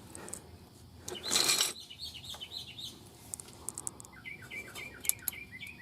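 A brief rustling scrape about a second in, then a bird chirping in a quick run of short falling notes over the last two seconds.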